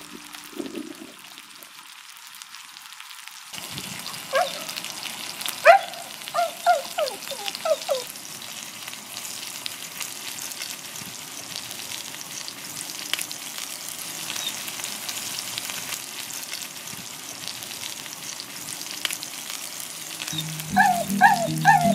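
Thick steak sizzling steadily on a hot round iron griddle over charcoal. Between about four and eight seconds in, a string of short, high, rising-and-falling calls sounds over the sizzle, and a few more come near the end.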